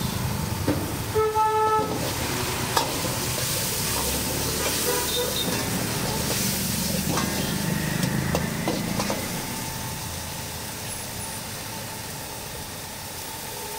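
Sauce and chopped vegetables sizzling in a steel wok while a steel ladle stirs and scrapes them, with scattered clicks of the ladle on the pan. A short horn toot, the loudest sound, comes about a second in.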